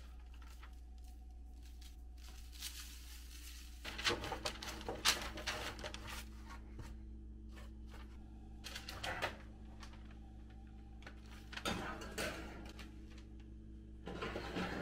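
Parchment paper crinkling and rustling in several short bursts as sliced carrots are tossed and spread on it by hand, over a steady low hum.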